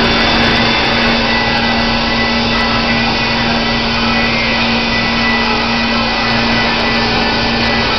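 Baker Products Super Streak band sawmill running steadily and sawing through a white oak log, a loud, even mechanical noise with a constant hum.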